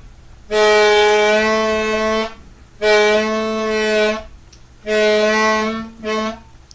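A reedy, instrument-like tone sounding the same low note over and over: three held notes of about a second and a half each, then a short one, with brief breaks between.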